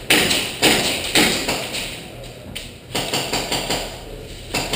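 Airsoft gun firing single shots at irregular intervals, each a sharp crack with a short echo, about eight in all with a pause in the middle.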